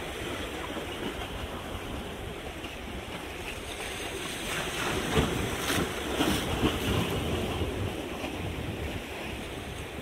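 Small sea waves washing against the boulders of a rock breakwater: a steady wash that swells midway with a few splashes against the rocks, then eases off.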